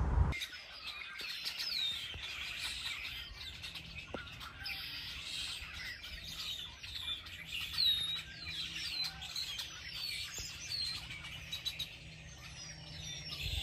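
Many small birds chirping in dense shrubbery: a busy, overlapping chatter of short, quick, downward-sweeping chirps, with no single song standing out.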